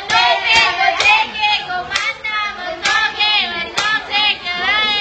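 A group of young voices singing along in unison, with sharp hand claps among the singing.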